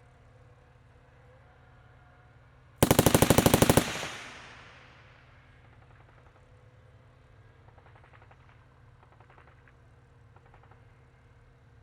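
A burst of automatic gunfire, about a dozen rapid shots in one second, a little under three seconds in, with an echoing tail. Fainter, more distant bursts of automatic fire follow several times later, over a low steady background.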